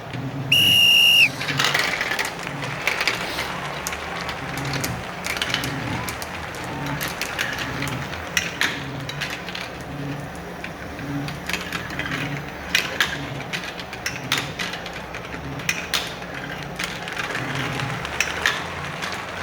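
A short, shrill whistle blast about half a second in, then background music with a steady beat under many sharp clicks of marbles knocking together.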